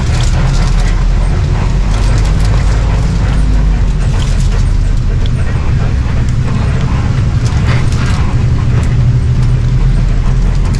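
Mercedes-Benz OH 1526 bus under way: its diesel engine drones steadily under road noise, with scattered light knocks and rattles.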